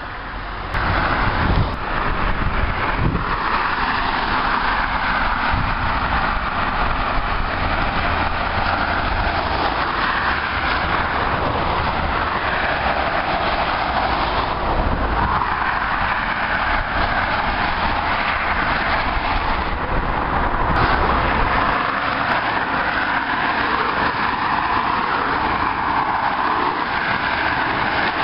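Steady traffic noise from cars passing at speed on a dual carriageway: a continuous rush of tyres and engines that comes up sharply about a second in, with a low rumble underneath that drops away about three quarters of the way through.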